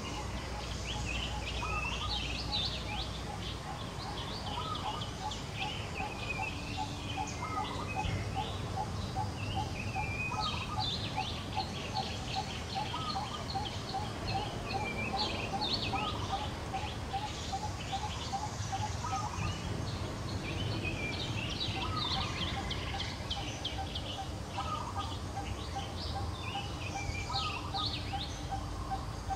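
Several wild birds calling together: varied high chirps and twisting whistles, over a fast, even series of lower pulsed notes that runs most of the time, with a short break about two-thirds of the way through.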